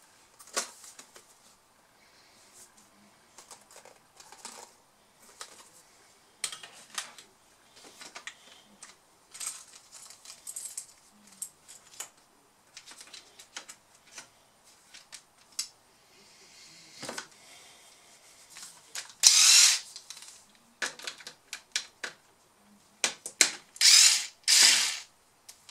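Cordless electric screwdriver whirring in several short runs in the last third, the longest lasting about a second, backing out screws in a laptop's base; its battery is weakening, as the owner believes. Before that, scattered clicks and taps of plastic laptop parts being handled.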